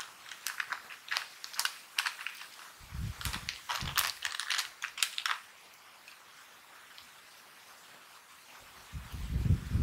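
Snack bag of corn chips crinkling as the chips are shaken out into a glass bowl: a quick run of sharp crackles and clicks for about five seconds. Then it goes quieter, with a few low thumps near the end.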